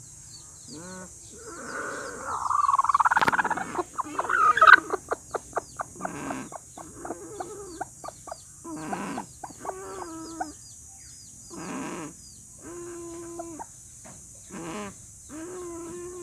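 Chicken making loud, rough snore-like sounds, followed by a quick run of short pulses and then a string of short clucks and a few drawn-out low calls.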